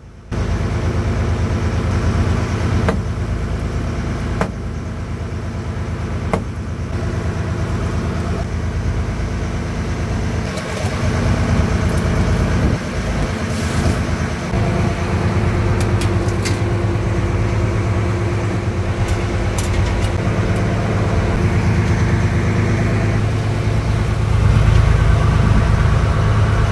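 Fishing boat's engine running steadily with an even low throb, with a few sharp knocks in the first several seconds.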